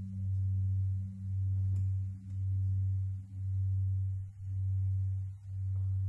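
A low, steady musical drone with a fainter tone an octave above it. It swells and dips in an even slow pulse a little more than once a second. A faint tap sounds about two seconds in.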